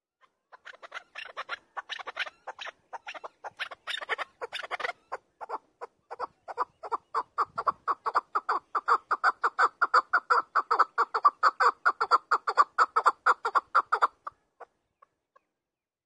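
Chukar partridge calling: a long run of rapid, clucking chuck notes that builds in loudness into a steady rhythm of about five notes a second, then stops about fourteen seconds in, followed by a few scattered notes.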